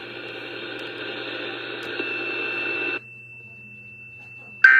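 Radio static hiss with a faint steady high tone that cuts off abruptly about three seconds in. Near the end a short, loud, buzzy data burst begins: the first of the Emergency Alert System's digital end-of-message bursts that close an alert.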